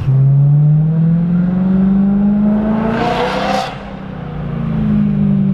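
BMW E90 M3's 4.0-litre V8 accelerating, heard from inside the cabin: the revs climb for about three seconds and break off with a short rasp near the middle. The engine then picks up again with its pitch slowly falling.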